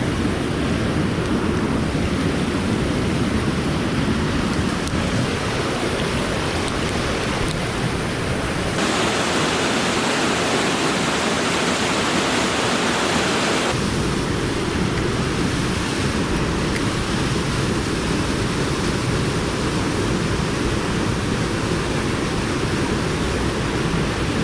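Fast-flowing creek rushing steadily over rocks. For about five seconds in the middle the rush turns abruptly brighter and hissier, then drops back just as suddenly.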